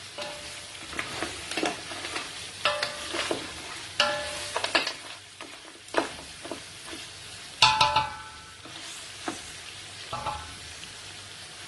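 Mutton pieces sizzling as they fry and brown in oil in a pot, while being stirred: a steady sizzle with frequent scrapes and knocks of the stirring spoon against the pot, some of them ringing briefly, the loudest knock about two-thirds of the way through.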